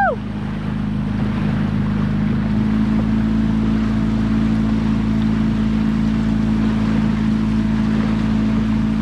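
Small boat's motor running steadily, a constant low hum. A short tone rises then falls right at the start.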